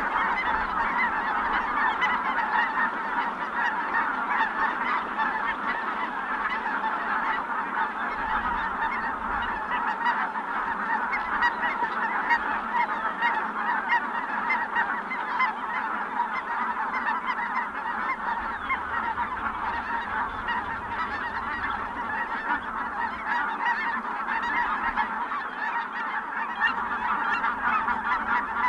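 Large flock of Ross's geese, mixed with other geese, calling continuously: a dense chorus of many overlapping short calls with no break.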